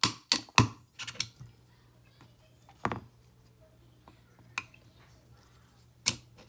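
Sharp clicks and taps of a pin punch working the trigger pins out of a Polymer 80 polymer pistol frame: three quick taps at the start, a couple more about a second in, then single clicks about 3, 4.5 and 6 seconds in. A faint low hum sits underneath.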